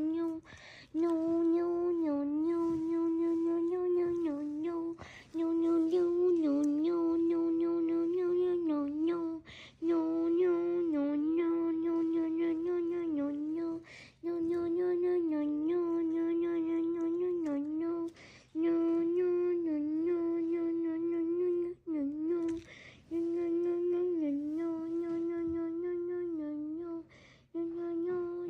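A single voice humming one droning note over and over, each hum held about four seconds with a small wobble in pitch, broken by short pauses.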